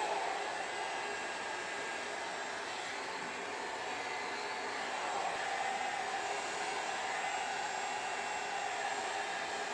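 A small electric blower motor running steadily, giving a constant airy whir with no change in pitch.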